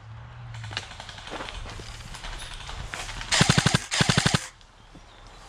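G&G PCC9 airsoft electric gun firing two short full-auto bursts about three and a half seconds in: a rapid, even rattle of shots with a brief gap between the bursts.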